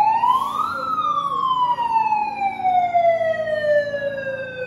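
Handheld megaphone's built-in siren giving one wail: the pitch climbs for the first second, then falls slowly for several seconds and stops.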